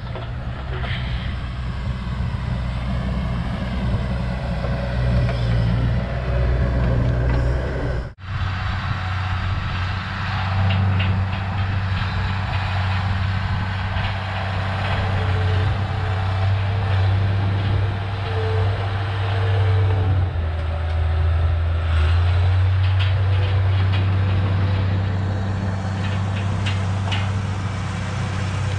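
Bulldozer's diesel engine running, a steady low drone that breaks off for an instant about eight seconds in.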